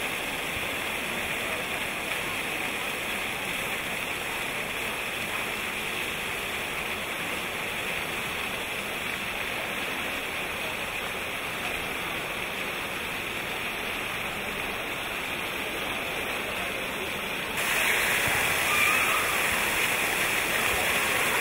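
Fountain water jets splashing down into their basin, a steady rushing patter. About three-quarters of the way through it turns suddenly louder and brighter, heard close up to the falling jets.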